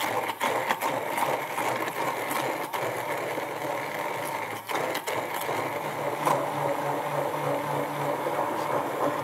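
Hand-held immersion blender running in a glass jar, chopping whole cashews into a thick chickpea and roasted-pepper purée: a steady motor hum with irregular clicks.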